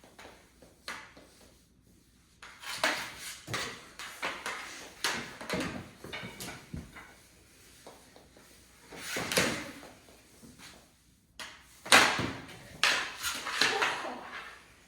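Knee hockey play: mini hockey sticks clacking and scraping and the ball knocking about on the floor, in irregular bursts of knocks with short lulls between, loudest about twelve seconds in.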